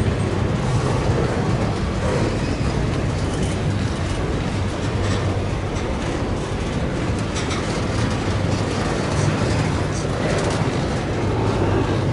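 Freight train rolling past on the rails: a steady rumble with scattered clicks of the car wheels over the track.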